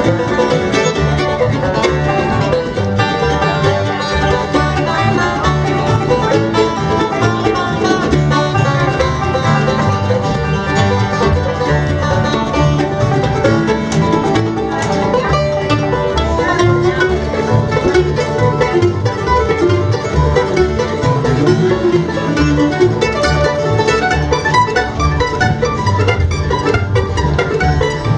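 Live acoustic bluegrass band playing an instrumental, with mandolin and acoustic guitar picking.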